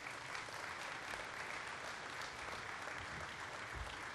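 Audience applauding: dense, steady clapping from a crowd.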